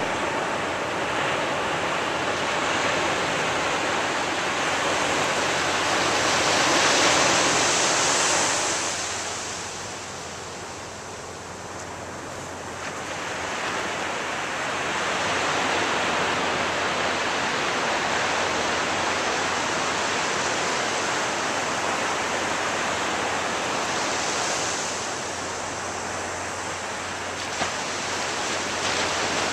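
Ocean surf on a beach: a continuous rush of breaking waves that swells loudest about seven seconds in, dies back, and swells again a little before twenty-five seconds.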